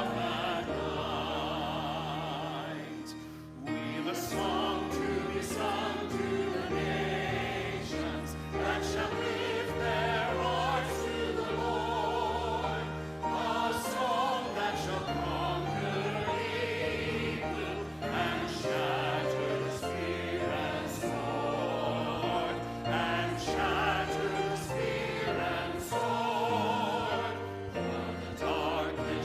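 Church choir singing with instrumental accompaniment, the voices sustaining notes with vibrato over held low notes, with a brief pause between phrases a few seconds in.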